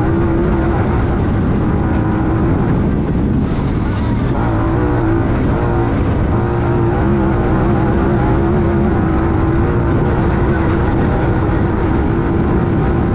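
Honda Talon 1000R's parallel-twin engine running hard at steady high revs, heard onboard over loud wind and terrain noise. Its pitch wavers briefly about four to five seconds in, then holds steady again.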